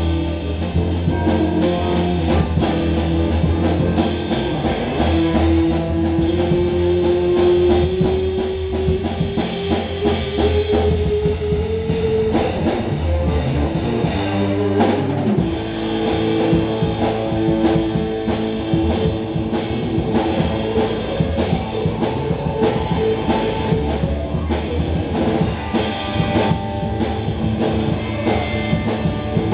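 Live instrumental rock trio playing: guitar, bass guitar and drum kit together, with no singing. A long held note rises slowly in pitch about five to twelve seconds in.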